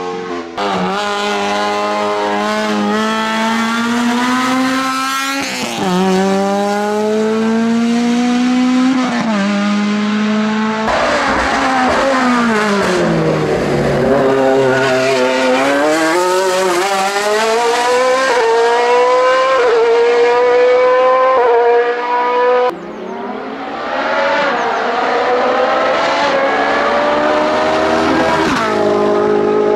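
Several racing cars run at full throttle, one after another. Their engine notes climb with each gear and drop back at quick upshifts, and about halfway through one car sweeps past with a falling pitch. The last car is a Ferrari GT race car, revving hard up through the gears.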